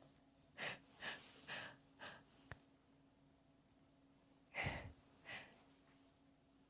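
Faint breathing and sighs: a few short soft exhalations, then two louder ones near the end, over a faint steady hum.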